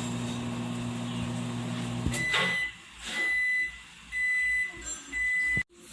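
Microwave oven running with a steady hum while heating a mug cake, then shutting off with a click about two seconds in and giving four short high beeps about a second apart to signal that the cooking time is done.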